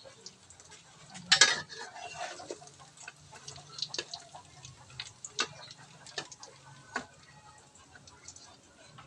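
Alamang fritters frying in oil in a wok: irregular small pops and ticks of spattering oil, with a louder clatter of a cooking utensil against the pan about one and a half seconds in.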